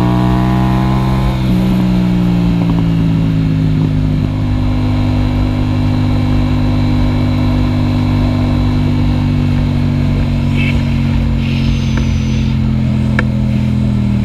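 Yamaha FZ-07 (MT-07) parallel-twin running through an Akrapovic exhaust: it revs up, drops in pitch with an upshift about a second and a half in, then holds a steady drone at cruising speed.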